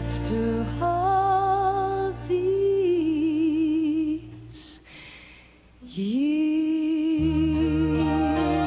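A woman sings a slow country ballad over a soft band backing, holding long notes with vibrato. Near the middle the backing falls away and she takes an audible breath, then holds one long note as the band comes back in.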